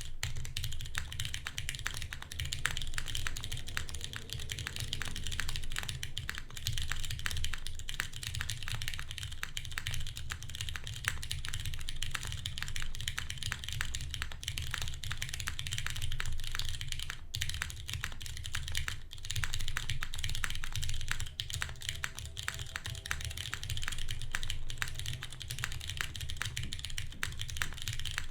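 Continuous fast typing on a Kalam Jane V2 custom mechanical keyboard with lubed Cherry MX Brown switches, a carbon fiber plate and GMK keycaps. It makes a dense, unbroken stream of keystrokes with a bassy, solid sound.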